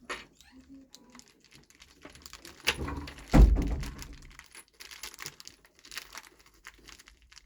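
Plastic screw-pack bag crinkling as it is handled, with light clicks of small parts and one heavier thunk about three and a half seconds in.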